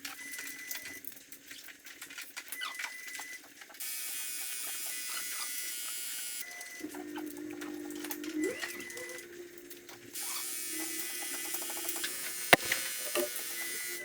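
Hand tools clicking and tapping on metal while the valve clearances are set on an Iveco Cursor 13 diesel engine, with a steady low hum from about halfway and one sharp metallic click near the end.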